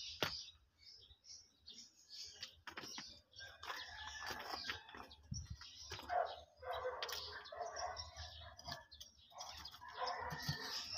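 A small hammer knocking and scraping at hard-packed soil, a few scattered knocks, with birds chirping in the background.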